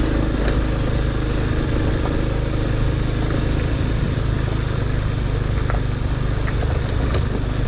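Motorcycle engine running at a low, steady pace while riding over a rough dirt and gravel track, with a few brief clicks and knocks from the rough surface.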